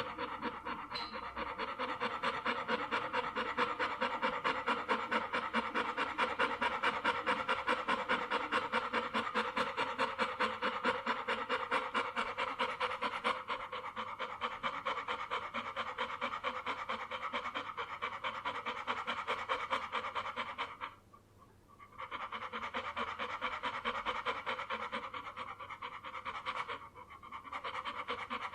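Dog panting, with quick, even breaths in a steady rhythm. The panting stops for about a second roughly three-quarters of the way through, then resumes, with a brief dip again near the end.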